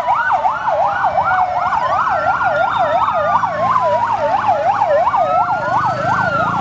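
Fire engine sirens: one in a fast yelp, rising and falling about three times a second, over a second siren in a slow wail that falls and then rises again.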